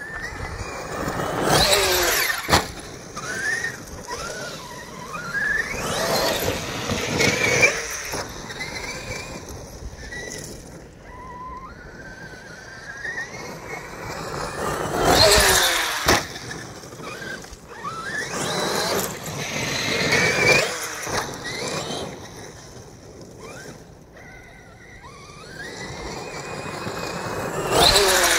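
Traxxas X-Maxx 8S electric RC monster truck driving on gravel and dirt in several loud passes, its brushless motor whining up and down in pitch as it speeds up and slows, with a noisy rush of tyres on gravel. Sharp knocks about two seconds in and around halfway, and one near the end as the truck lands from a jump.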